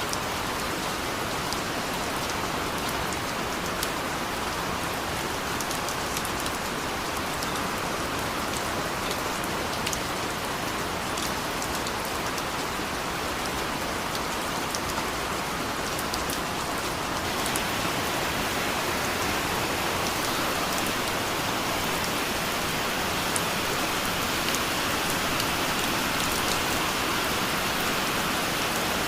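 Steady rain falling, with individual drops ticking through the hiss. It grows a little louder and brighter just past halfway.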